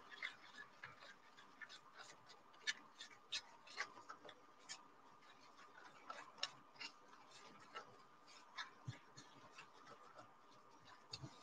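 Very faint, irregular ticks and scrapes of a wooden popsicle stick stirring a dry mix of talcum powder, white glue and oil in a plastic bowl, over a faint steady high tone.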